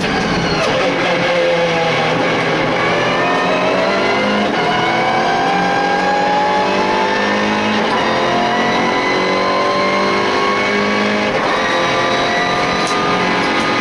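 MINI Challenge race car's turbocharged four-cylinder engine heard from inside the cockpit under hard acceleration, its note climbing steadily for several seconds, then dropping once about eleven seconds in as at an upshift before climbing again, over road and wind noise.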